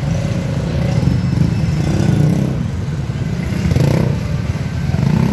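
Several motorcycle engines running at low speed in jammed traffic, a steady low engine sound throughout.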